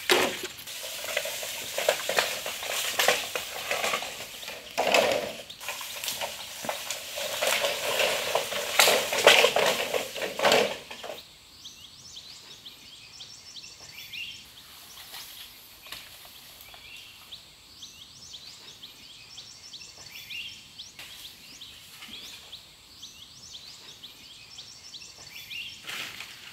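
Green bamboo poles being shifted and knocked together over dry leaf litter, a dense crackling and clattering for about the first eleven seconds. It then gives way to a quiet background with faint high chirps repeating every second or two, and a short clatter near the end.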